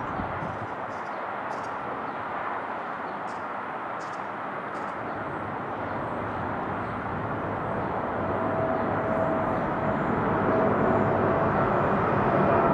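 Boeing 777 jet airliner on approach with gear down, its twin engines a steady rush that grows louder as it nears. A thin engine whine comes in about two-thirds of the way through.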